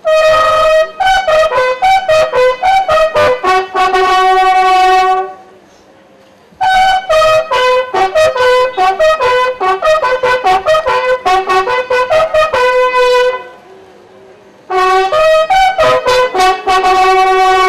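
A lone bugle sounding a funeral salute for a police honour guard: a slow call in three phrases with short pauses between, its held notes stepping among the bugle's few fixed pitches.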